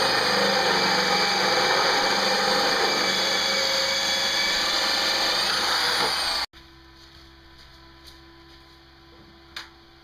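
Inexpensive hand-held electric drill running at high speed while drilling a hole, a steady whine with grinding noise. It cuts off abruptly about six and a half seconds in, leaving a quiet room with a faint click near the end.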